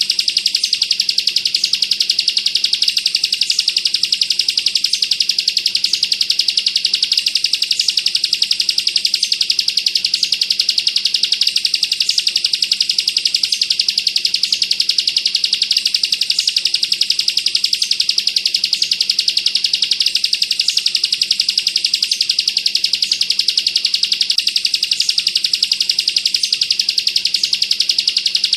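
Bar-winged prinia (ciblek) singing its 'bren' song: a continuous, very fast rattling trill of high notes, packed tight with no pauses.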